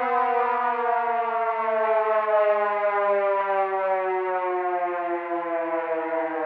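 Air-raid siren wailing, its tone sliding slowly and steadily down in pitch.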